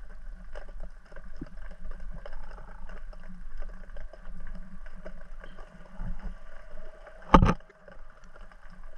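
Underwater ambience picked up through a diver's camera housing: a steady low rumble with scattered faint clicks. One sharp knock about seven seconds in.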